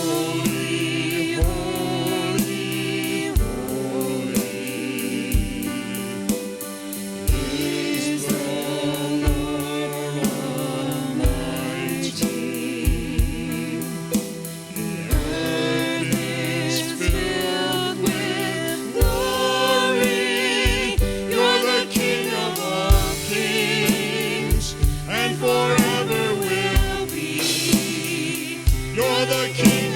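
Gospel worship music: several voices singing with vibrato over a band's sustained chords, a drum beat keeping a steady pulse of about one beat a second.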